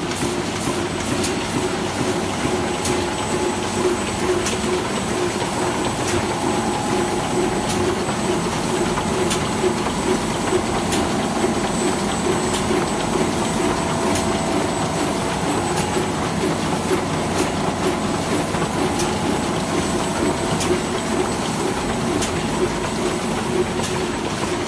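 Heidelberg Speedmaster SM 74 sheetfed offset press (five printing units with perfecting and a coating unit) running steadily: a continuous mechanical hum and a high whine, with sharp clicks repeating over and over.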